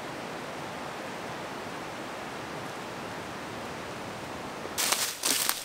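Steady rushing of a flowing creek. Near the end, louder crunching footsteps and rustling through dry grass and scrub.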